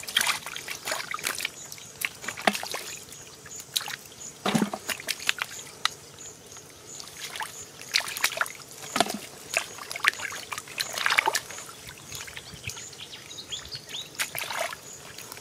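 Hands scooping mud and grabbing at catfish in shallow muddy water: irregular splashes and sloshing, with a few sharper splashes about 2.5, 4.5, 9 and 11 seconds in.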